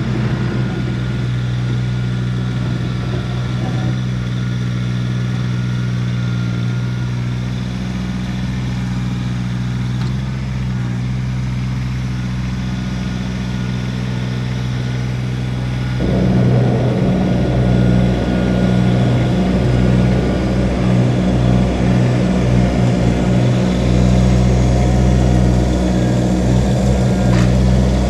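Kubota BX1850 compact tractor's three-cylinder diesel engine running steadily, then running louder and rougher from a little over halfway through.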